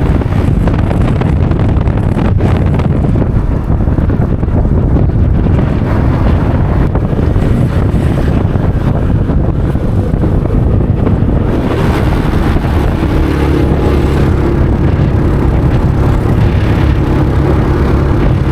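Wind buffeting the microphone on a moving motorbike, a heavy steady rumble over the bike's running engine; past the middle a steadier engine hum comes through.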